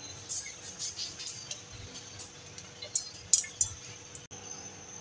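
Cooking oil heating in a hot nonstick frying pan, giving a few faint, scattered crackles and ticks, a little louder about three seconds in.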